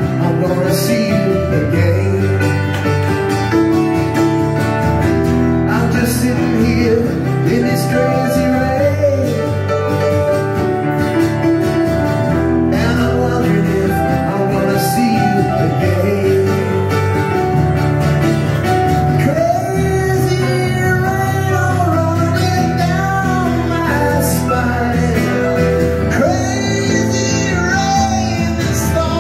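Live song played on a strummed acoustic guitar with an electric keyboard, and a man's voice singing at times, most plainly in the last ten seconds.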